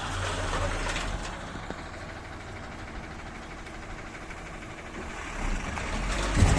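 Diesel engine of a working backhoe or tractor running. Its low hum is louder for about the first second and a half, eases off, then builds again from about five seconds in.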